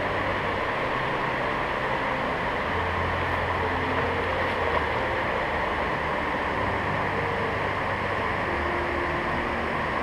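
Steady rushing of water spilling over a small river weir, an even noise that does not change.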